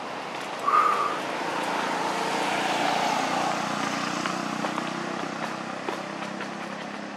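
A passing motor vehicle, its engine noise swelling over the first few seconds and slowly fading, with a brief high tone about a second in.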